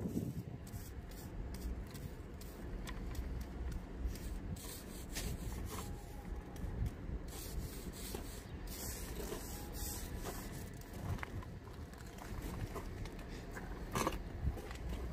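Scratchy rubbing and crackling of a small laminating roller worked over a resin-wetted fibreglass mat, in short irregular strokes over a steady low rumble.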